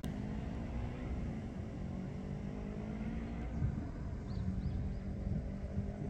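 An engine running steadily at a constant pitch over a low rumble. Two faint, short, high chirps come about two thirds of the way through.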